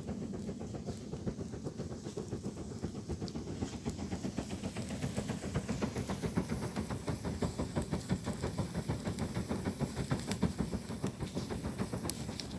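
A hand fan waved back and forth over a grill fire to fan the flames, a fast, even whooshing of several strokes a second with a hiss.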